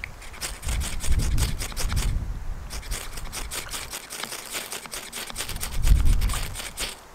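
Knife blade shaving thin curls off a small wooden stick in quick repeated scraping strokes, with a short break about two seconds in. Wind gusts buffet the microphone, loudest near the end.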